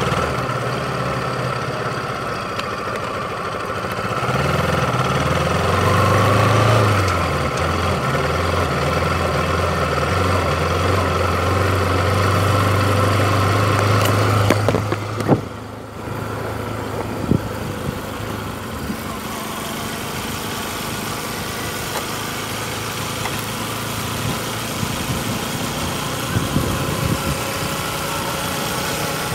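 Motorcycle engine running under way, its note rising about five seconds in. Around fifteen seconds in there is a brief dip and a few knocks. After that a steady rushing wind and road noise takes over, with the engine fainter.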